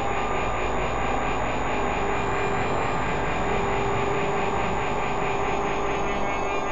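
Dense synthesized drone from a Max 8 sonification patch: many steady tones layered over a noisy wash, with a thin high tone that drifts slightly in pitch.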